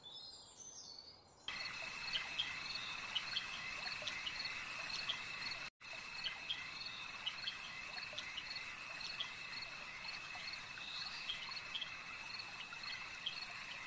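Night-time cricket ambience: a steady high trill with scattered short chirps above it, coming in about a second and a half in and briefly cutting out near the middle.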